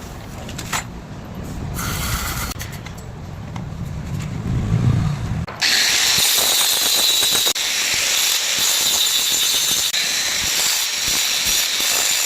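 Angle grinder on steel: a low rumble, then about halfway through a loud, high-pitched grinding hiss with a steady whine sets in abruptly as the disc bites into the metal.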